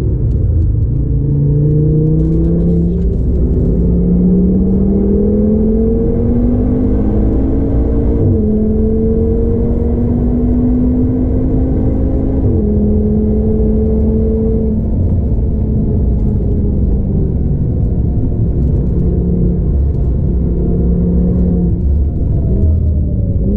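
Stage 2-tuned Audi TT RS 8J's 2.5-litre turbocharged inline-five pulling hard under full throttle, heard from inside the cabin. It upshifts about 8 and 12.5 seconds in, then eases off and runs at lower, steadier revs as the car slows.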